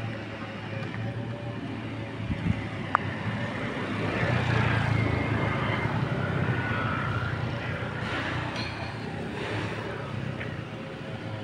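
A road vehicle passing by, swelling to its loudest about four to six seconds in and then fading away. Two sharp clicks come shortly before it.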